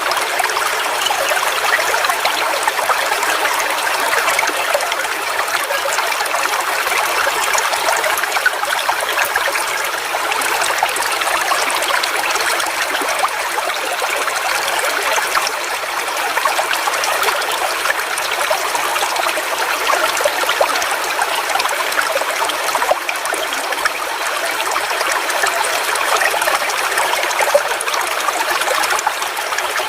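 Forest waterfall: water falling and splashing in a steady, even rush, mostly in the middle and high range with little low rumble.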